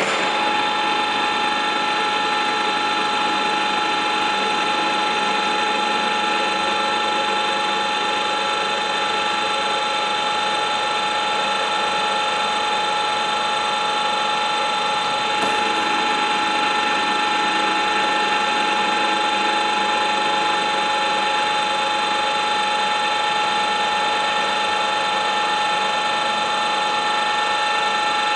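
HU 40 G-4 pillar drill switched on and running steadily under power, a loud mechanical rattle with a steady whine of several fixed tones.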